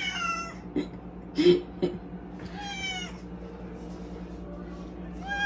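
Domestic cat meowing three times, each meow falling in pitch: one at the start, one near the middle, and one beginning near the end. A brief, louder noise comes about one and a half seconds in.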